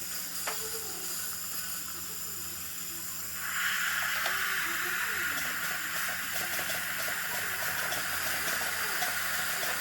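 High-speed dental handpiece with water spray and suction during access cavity drilling on a molar: a steady hiss with a thin, steady high whine. A louder hiss comes in about three and a half seconds in and holds.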